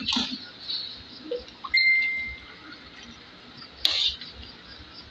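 Kitchen utensils clinking against cookware: a clink that rings on briefly about two seconds in, then a sharp knock with a short hiss near the end.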